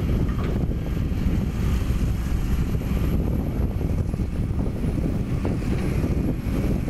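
Kobelco 7055 crawler crane's diesel engine running steadily, a low rumble holding the load on its hoist.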